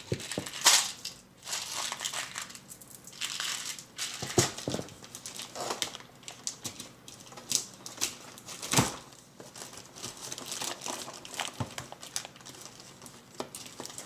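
Packaging crinkling and rustling as it is handled and unwrapped, broken by irregular sharp snaps and clicks. The loudest snap comes a little under nine seconds in.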